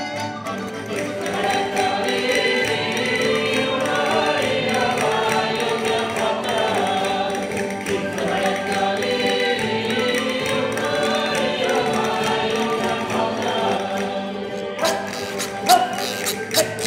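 A choir singing music. Near the end the singing gives way to sharp, plucked or struck strokes.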